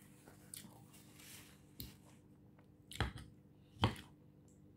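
Close-up eating sounds of a lettuce salad: a fork clinking on the plate and chewing, heard as a few short sharp clicks, the loudest two about three and four seconds in.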